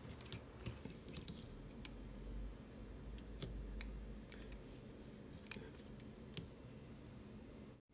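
Faint, scattered light clicks of wooden double-pointed knitting needles knocking together as the stitches are handled, with a low rumble of handling from about one and a half to four and a half seconds in.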